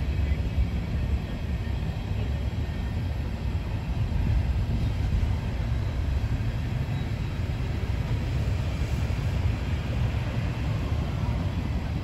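Freight train of railroad tank cars rolling past, a steady low rumble of wheels on rail.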